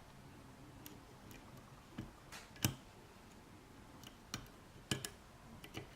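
Small Corbin padlock being picked: faint, irregular sharp clicks of the pick and tension wrench working the pin stack as pins set, about ten in all, the loudest about two and a half seconds in.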